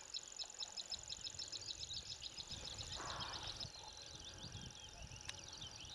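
A small songbird singing: a fast run of short, high, identical notes, about five a second, that turns into more varied twittering about three and a half seconds in, over a steady thin high-pitched whine and a faint low rumble.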